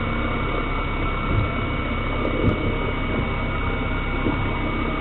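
Boat motor running steadily, a constant hum with a thin steady whine over a haze of noise.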